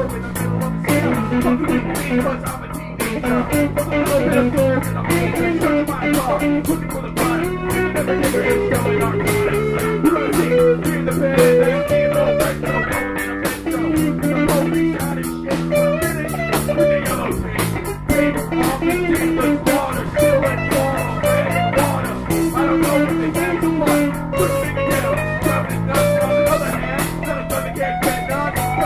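Instrumental band music: a guitar plays a wandering melody over a bass line and a steady beat.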